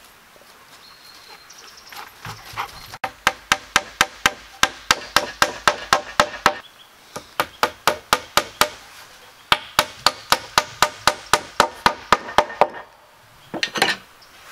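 Claw hammer driving a nail into a wooden board. About three seconds in, three runs of rapid blows begin, about five a second, each with a short metallic ring, and two louder knocks come near the end.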